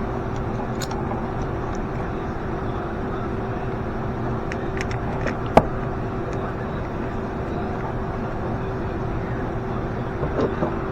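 A steady engine-like running hum, with a few small sharp clicks and one louder click about halfway through.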